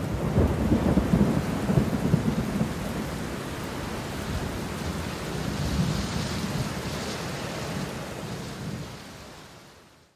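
Thunder rumbling over steady rain, the rumble strongest in the first two or three seconds, the whole fading out near the end.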